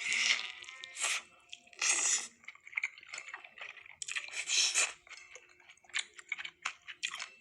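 Crunching of crisp food: a series of loud, crackly crunches, the strongest near the start, about two seconds in and about four and a half seconds in, with smaller crackles between.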